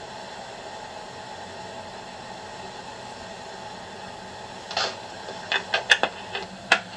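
Steady hiss with a faint hum under it. About five seconds in comes a quick run of sharp knocks and taps, the loudest near the end.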